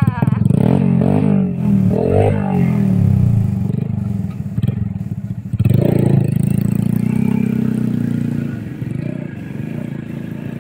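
Small motorcycle engine running just after being kick-started back to life from a stall, revved up and down, then pulling away along a dirt track and fading into the distance near the end.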